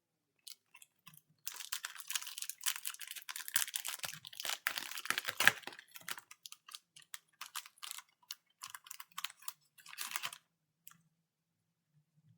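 Football trading cards handled and slid against one another: a dense run of quick crisp clicks and rustles for about four seconds, then scattered single clicks that stop about ten seconds in.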